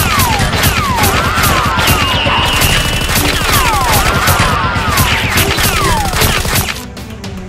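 Dubbed-in automatic gunfire sound effects: rapid shots with several whistles falling in pitch, stopping about seven seconds in.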